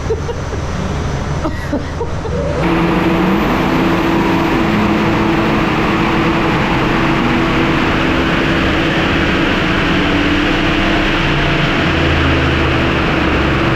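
RB30 straight-six engine in a VL Commodore running on a chassis dyno. It runs lower for a couple of seconds, then about two and a half seconds in it jumps to a loud, steady roar under load and holds there.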